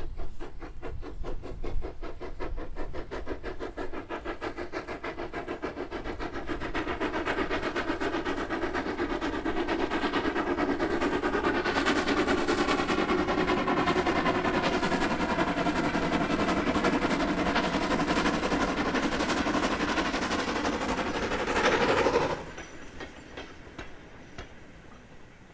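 Lancashire & Yorkshire Railway Class 21 'Pug' 0-4-0 saddle tank steam locomotive passing under steam with a short goods train: a rapid, even exhaust beat that grows louder as it nears. The sound drops away abruptly near the end.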